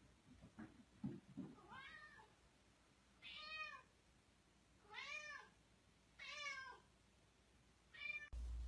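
Cat meowing repeatedly: about five drawn-out meows a second or so apart, each rising and then falling in pitch. A few soft thumps come about a second in.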